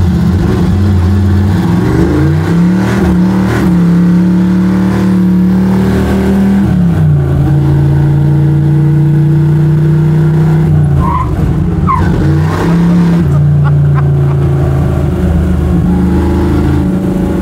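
Small-block Chevy V8 of a square-body Chevy C10 drift truck running loud under way. Its pitch climbs about two seconds in, holds, drops about seven seconds in, then dips and climbs again around twelve to thirteen seconds.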